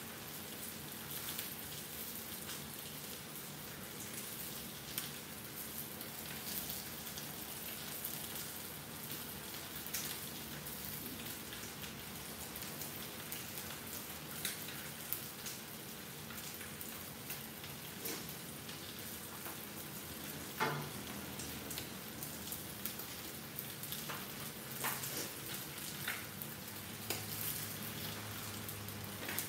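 A salmon steak frying in oil in an iron skillet: a steady sizzle, crackling with scattered small pops, one louder pop about two-thirds of the way through. A faint steady hum runs underneath.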